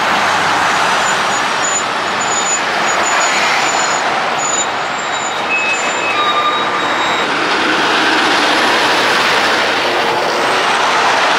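Semi-trucks with loaded flatbed trailers passing close by in heavy road traffic: a steady mix of tyre and diesel engine noise, with a few brief faint squeaks about halfway through.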